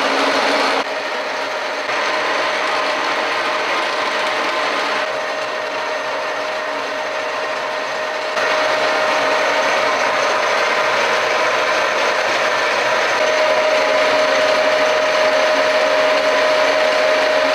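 Metalworking milling machine running: motor, belt drive and gearing whirring with a steady whine. The level changes abruptly a few times between takes, and the whine grows stronger about halfway through.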